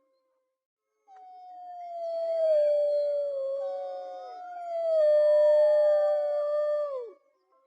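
Wolves howling in chorus: after a second of silence, several long overlapping howls rise in. Each is held, then slides down in pitch at its end, the last dropping away about seven seconds in.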